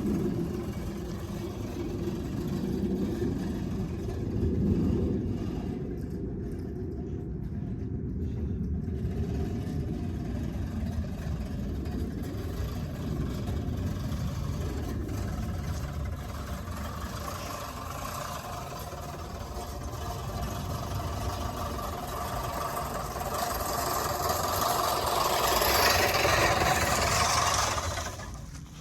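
Manual push reel mower being pushed across a lawn, its spinning blade reel whirring and clattering as it cuts grass, growing louder and brighter near the end before dropping off suddenly.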